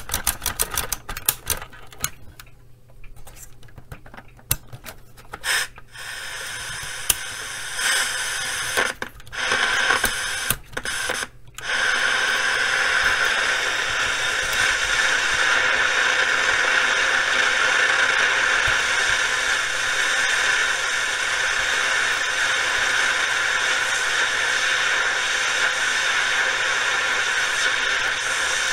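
Static hiss from the Panasonic RF-2400 portable radio's speaker, crackling and cutting in and out for the first dozen seconds as the band selector switch is worked. It then settles into a steady hiss. The intermittent contact is the sign of a dirty band selector switch that still does not work properly after being sprayed with contact cleaner.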